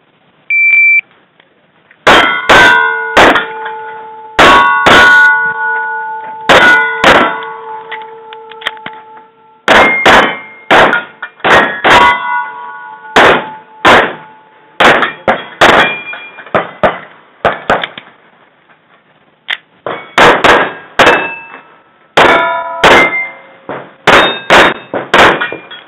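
A shot-timer start beep, then a string of pistol shots from a Kimber 1911 at steel targets, each hit followed by the clang and ring of the steel plates. There is a pause of about two seconds past the middle before the shooting resumes.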